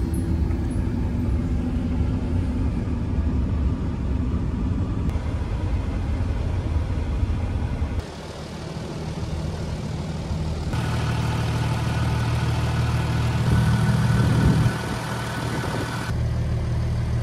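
Audi A5 engine running at idle, a steady low rumble. The sound drops and changes character about eight seconds in, then settles into a steady hum with a faint whine on top.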